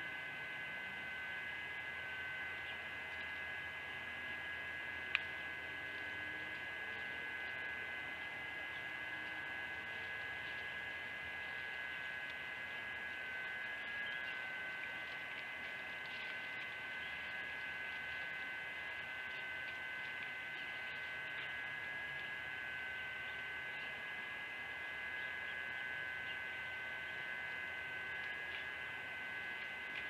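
A steady high-pitched electrical hum with a hiss over it, holding unchanged throughout, with a single sharp click about five seconds in. No bird calls are heard.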